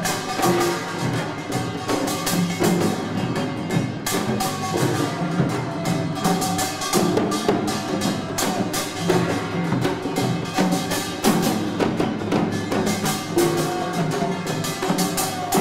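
Korean folk percussion: buk barrel drums and small sogo hand drums beaten in a fast, steady rhythm, with a held melodic line running over the drumming.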